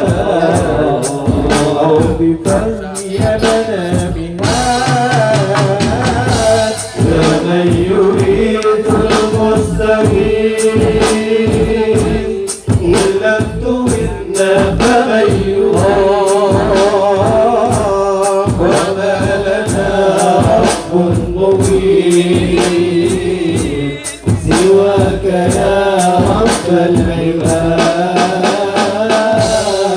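A group of men singing an Arabic devotional song (sholawat) together into microphones, with fast, steady percussion beats.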